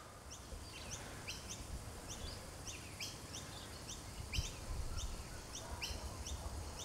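Outdoor ambience: short high chirps repeating about twice a second over a low rumble, with a single soft low thump a little past the middle.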